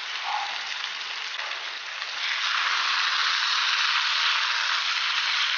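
Potato and pea curry sizzling in the pan on a low flame, a steady hiss that grows louder about two seconds in.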